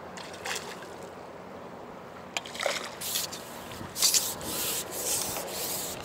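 A landing net holding a small bream is lifted out of the river and brought onto the grassy bank. About two and a half seconds in, a run of irregular rustles and swishes begins as the net rubs through the grass.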